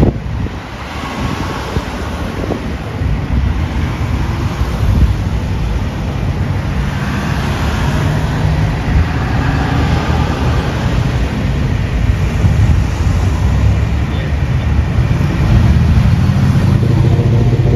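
Road traffic: cars running and driving past on a busy street, with wind buffeting the microphone. A steady engine hum grows louder near the end.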